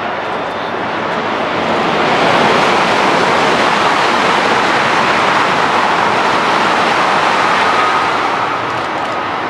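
Steady rushing rumble of a train running past on the rails, swelling about two seconds in and easing near the end.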